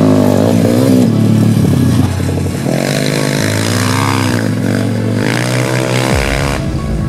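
Four-stroke pit bike engine revving hard, its pitch rising and falling again and again with the throttle as the bike rides past.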